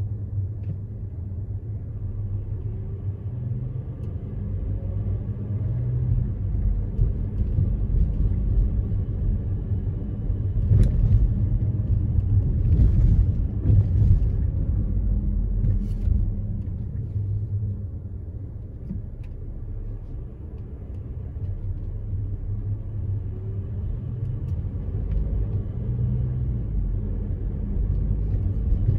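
Car driving along city streets: a steady low rumble of engine and road noise, with a few brief clicks and hisses about halfway through.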